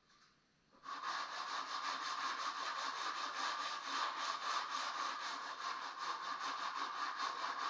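Small handheld electric sander switched on about a second in, then running steadily against wood with a fast buzzing vibration, sanding old finish off a wooden fireplace mantel.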